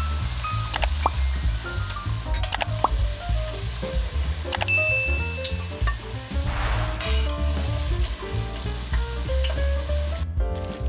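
Battered potato strips deep-frying in hot oil in a stainless steel pot, sizzling steadily, with a few sharp metal clinks as a spatula works in the pot. The sizzling stops shortly before the end.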